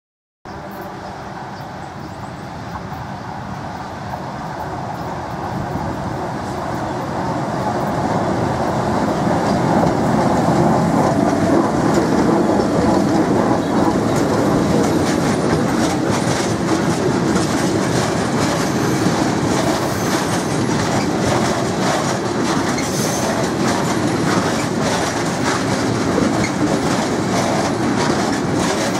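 Freight train hauled by a ZSSK Cargo class 131 twin-unit 3 kV DC electric locomotive passing close by: the rumble grows louder over the first eight or nine seconds as it approaches, then holds steady as the long line of open freight wagons rolls past, wheels clicking over the rail joints.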